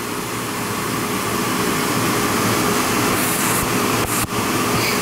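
CNC milling machine boring a 1-inch hole in a chromoly crank-arm blank under flood coolant: steady spindle and cutting noise with a held tone. It builds slightly over the first couple of seconds and briefly dips with a click about four seconds in.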